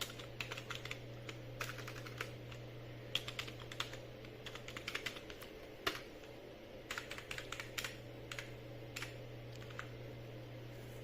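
Computer keyboard typing in short irregular bursts of keystrokes, over a steady low hum.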